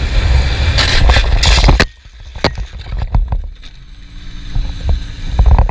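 A Honda CB400 Super Four motorcycle going down in a lowside: a loud rush of wind and scraping noise that cuts off suddenly about two seconds in. After that, a quieter low rumble with a few sharp knocks.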